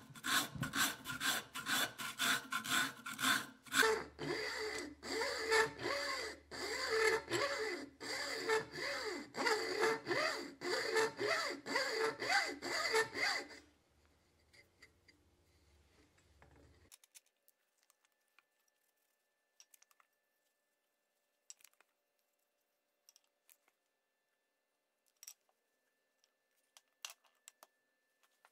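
Coarse rasp shaping a wooden hammer handle: quick, rough back-and-forth strokes, about three a second. The rasping stops about halfway through, leaving only a few faint ticks.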